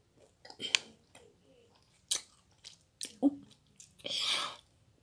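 A child chewing sour Skittles, with a few short wet clicks and smacks of the mouth, then a breathy hiss about four seconds in as he grimaces at the sourness.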